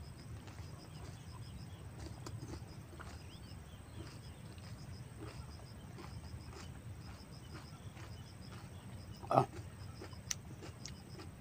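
Faint eating sounds from a person eating shellfish: soft chewing and scattered small clicks of shell over a steady low hum. There is one short, loud crack or smack about nine seconds in and a sharp click a second later.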